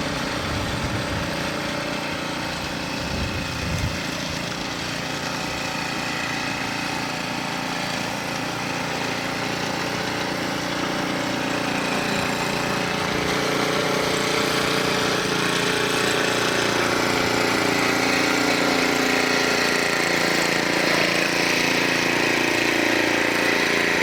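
Small snowblower engine running steadily under load, getting a little louder about halfway through.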